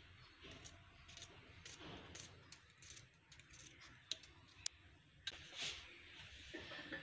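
Faint scattered clicks and light taps as garlic cloves are dropped into an unglazed clay kundi (grinding bowl) onto chopped herbs, with two sharper ticks a little past the middle.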